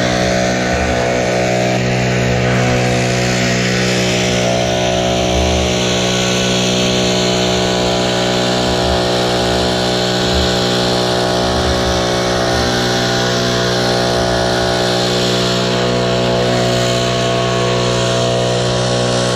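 Gas backpack leaf blower running steadily, its engine drone mixed with the rush of air from the blower tube.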